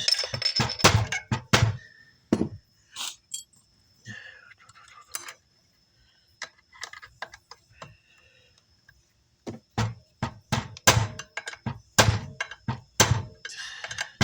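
Sharp knocks and clicks of hard parts and tools on a workbench as a replacement amplifier switch is pressed and tapped into place, in two busy clusters with a quieter stretch between.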